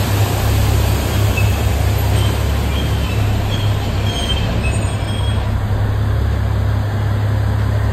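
Narrow-gauge diesel locomotive engine running with a steady low drone.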